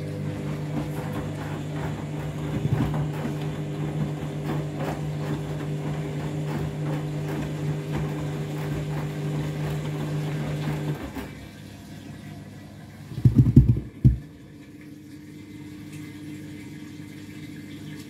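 Candy front-loading washing machine on a deep rinse: the motor hums steadily as the drum tumbles the laundry through the rinse water with splashing, and it stops about eleven seconds in. A couple of seconds later comes a brief loud low thudding, then a quieter steady hum.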